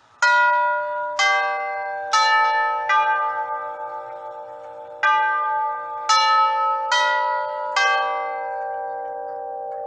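Herschede Model 228 grandfather clock's tubular chimes, hammers striking the long metal tubes in two phrases of four notes, each note ringing on and overlapping the next. Two four-note phrases with the minute hand on the six is the half-hour chime.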